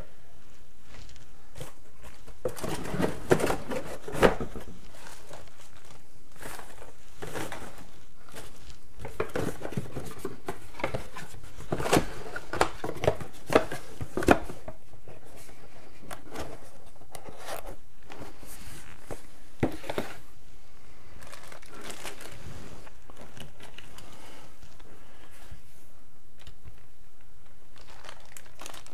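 Handling noise from packaging: plastic bags crinkling and cardboard box flaps being moved, with scattered clicks and knocks. It is busiest about three seconds in and again around twelve to fourteen seconds, then sparser.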